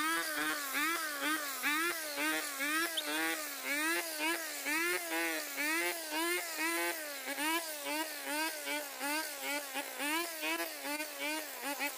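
Shibaura 34 mm-bore two-stroke brush cutter running at high revs while cutting grass. Its whining engine note rises and falls about twice a second with the side-to-side sweeps.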